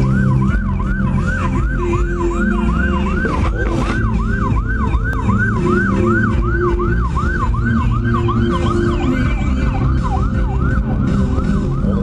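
Police car siren on the fast yelp setting, sweeping up and down about two and a half times a second, heard from inside a car following the chase, over the car's low rumble.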